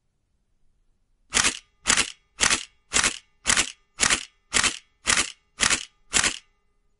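Nikon DSLR shutter firing ten times in a steady series, about two releases a second, each a short mechanical clack of mirror and shutter.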